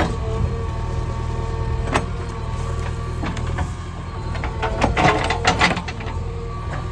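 JCB 3DX backhoe loader's diesel engine running steadily under hydraulic load with a constant whine. A single sharp knock comes about two seconds in, and a quick cluster of knocks and crackles follows a little after halfway.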